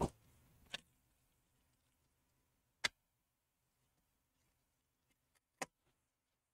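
A few short, sharp clicks and taps, spaced a second or more apart, with fainter ticks near the end: a gloved hand handling a laptop's lid and LCD panel, plastic and metal knocking lightly.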